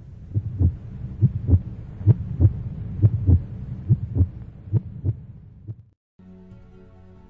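Heartbeat sound effect: low thumps in pairs, about one pair a second, stopping about six seconds in. Soft music with long held notes begins just after.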